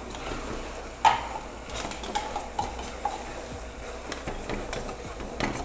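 Spoon stirring and scraping a pan of peanuts, melted sugar and condensed milk as it bubbles on the stove, with a sharp knock of the spoon about a second in and another near the end.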